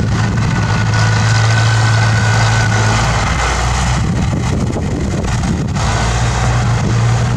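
Bulldozer's diesel engine running steadily, a low continuous drone with mechanical noise over it, shifting slightly partway through.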